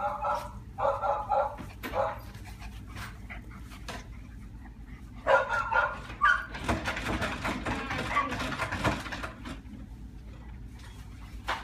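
Golden Retriever x Miniature Schnauzer puppies playing together, giving clusters of short yips and barks near the start and again about five seconds in, then a few seconds of rougher, noisier sound as they wrestle, with one more yip near the end.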